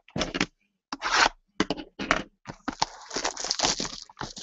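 Plastic shrink-wrap being torn off a sealed trading-card box and crumpled: a few sharp rips and scrapes, then steady crinkling of the plastic from about halfway through.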